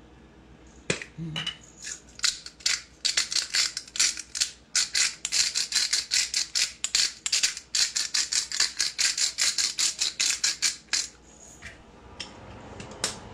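Pepper grinder twisted over a pan of curry, making a fast run of sharp clicks, about four a second, that starts about a second in and stops about eleven seconds in.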